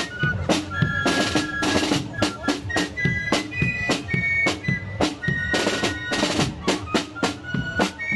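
Fife and drum band playing a march: high fifes carry a tune in short held notes over a snare drum playing steady beats and rolls.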